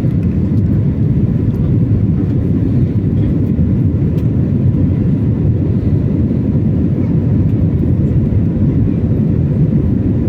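Airliner cabin noise heard from inside: the jet engines and rushing air at departure power make a steady, low roar.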